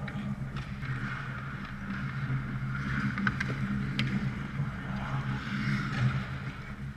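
Ice hockey play: skate blades scraping and carving on the ice, swelling and fading as players skate past, with a few sharp clacks from sticks and puck, over a steady low hum of the arena.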